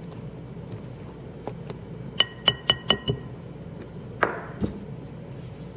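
A whisk tapped five times in quick succession against a mixing bowl, each a sharp ringing clink, followed about two seconds later by a single louder knock, with light ticks of the whisk in the bowl earlier on.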